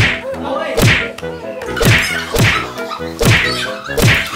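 A quick series of about six punchy whack impact sound effects, each ending in a low thud that drops in pitch, over background music.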